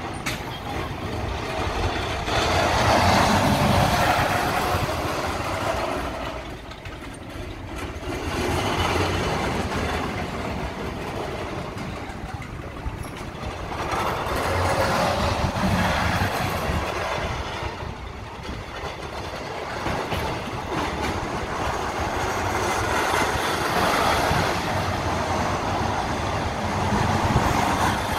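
Roller coaster car rumbling along its steel track. The sound swells and fades several times as the car passes nearer and farther.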